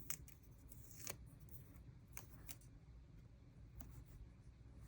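Near silence with a few faint ticks and light rustles from paper stickers being peeled and handled.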